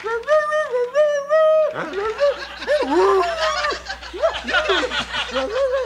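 Person in a dog costume voicing a dog: a long, wavering, whining note, then a run of chuckling, mumbling dog-like noises.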